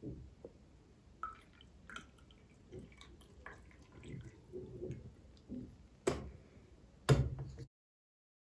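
Small clicks, taps and light wet handling sounds, with two louder knocks about six and seven seconds in; the sound then cuts off to silence.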